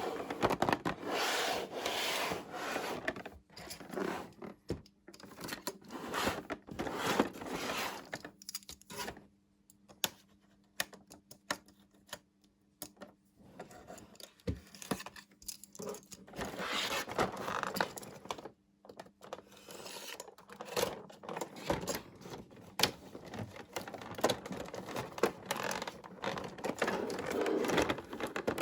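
Unboxing packaging being handled: scraping, rubbing and tearing, with scattered sharp clicks and knocks. It comes in bursts, with two quieter pauses partway through.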